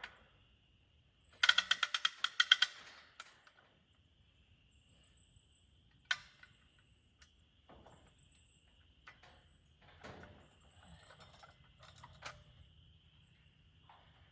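A quick run of about a dozen ratcheting clicks lasting just over a second, followed by scattered light knocks and rustles of hands working on the trap.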